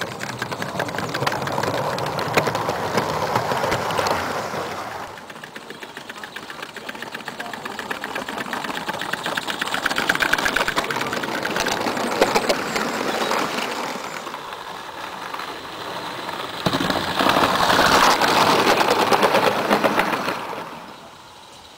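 A long train of garden-railway coaches rolls past close by, its wheels making a rapid, continuous clatter on the small-scale track. The clatter swells and fades as the coaches go by and drops away sharply near the end as the last coach passes.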